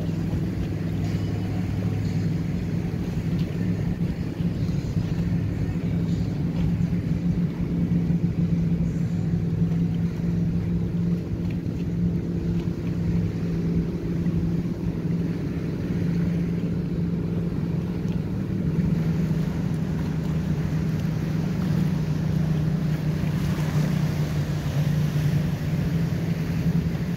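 Motorboat engines running in a steady low drone as several boats cruise past on the lake.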